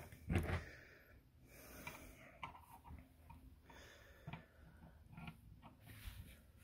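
Faint clicks and small knocks of tiny plastic toy guns being handled and pulled from the slots of a miniature plastic weapons crate. A short breath comes near the start.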